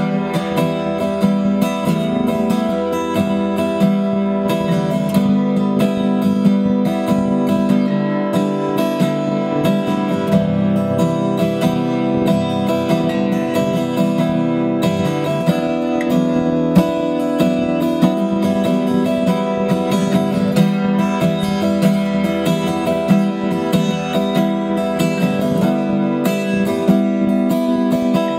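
Acoustic guitar strummed steadily in an even, continuous rhythm, its chords ringing.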